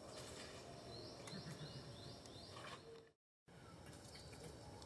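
Faint outdoor ambience with a few short, high, falling chirps clustered between about one and three seconds in. The sound drops out completely for a moment at about three seconds in.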